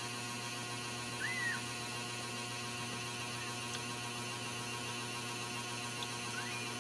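A week-old Ragdoll kitten gives a short, high, arched squeak about a second in and a fainter rising one near the end, over a steady electrical hum.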